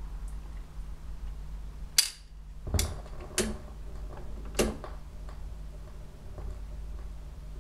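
Garrard autochange record deck of a Decca Deccalian stereogram cycling to play a record: four sharp mechanical clicks about two to five seconds in, the first the loudest, as the tonearm sets down. A steady low mains hum from the amplifier runs underneath.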